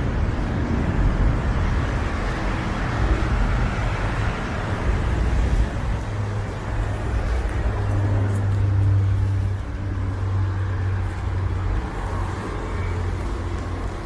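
Road traffic running by, with a steady low engine drone from about six seconds in to near the end, mixed with the low rumble of wind gusting on the microphone.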